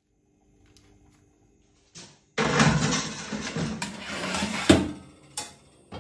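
Metal baking tray being slid into an oven along its side runners: a loud scraping rattle of metal on metal for about two and a half seconds, ending in a sharp clank as it goes home. A second, lighter knock follows as the oven door is swung shut.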